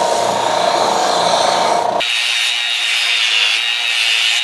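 Horizontal belt sander running with a wooden throat-plate insert blank held against the belt, sanding down its rounded end to fit the saw's opening. About two seconds in the sound abruptly turns thinner and higher.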